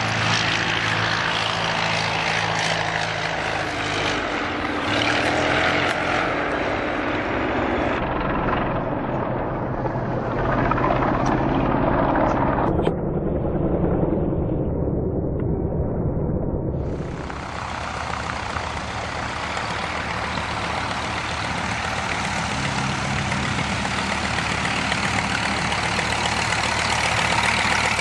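Piston engines of vintage Curtiss propeller aeroplanes droning as they fly past in formation, growing duller and more distant midway. About two-thirds through, a closer steady engine sound starts abruptly.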